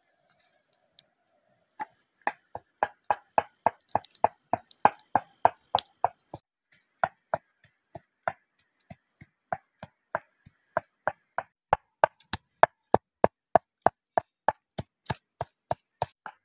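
A pestle pounding red chillies and salt in a mortar: sharp, regular knocks at about three to four strokes a second, starting about two seconds in. A steady high insect drone runs underneath and breaks off briefly a little past the six-second mark.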